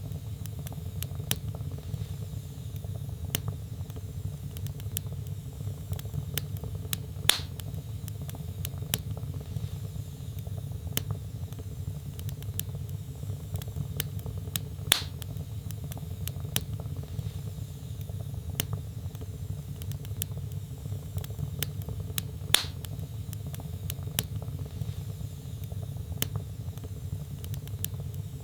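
Wood fire burning in a fireplace: a steady low rumble with continual small crackles, and three louder pops spaced about seven and a half seconds apart.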